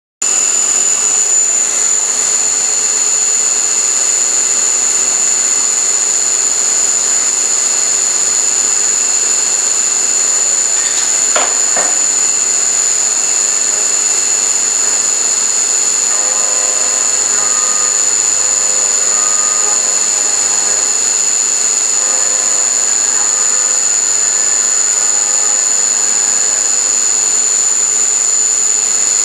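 CNC vertical milling machine cutting with a small end mill, the spindle running at high speed with a loud, steady high-pitched whine. It starts abruptly at the beginning. There is a brief sharp sound about 11 seconds in, and from about 16 seconds short intermittent tones come and go as the cutter works the part.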